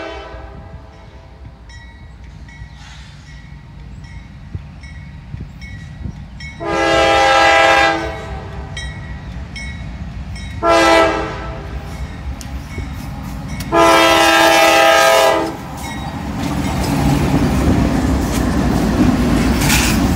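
CSX freight locomotive's multi-chime air horn sounding a long blast, a short one and another long blast. The rumble and rail noise of the approaching double-stack intermodal train builds from about three quarters of the way in.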